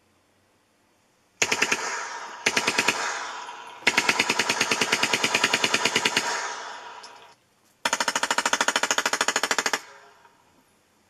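Four bursts of rapid machine-gun fire, roughly eight shots a second, the bursts trailing off at their ends. It is a sound effect played back through a pair of Sharp bookshelf speakers.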